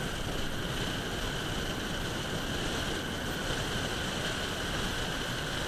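Car driving along a road: a steady rush of tyre and wind noise.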